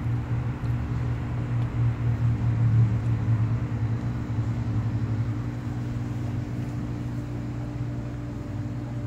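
Steady low machine hum of a running motor, holding one constant drone throughout.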